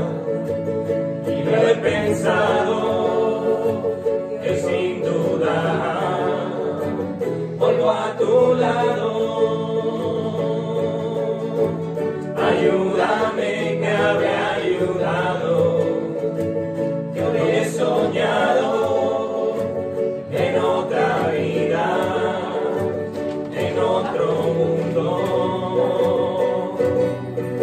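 Voices singing a pop song together, accompanied by several ukuleles and an acoustic guitar.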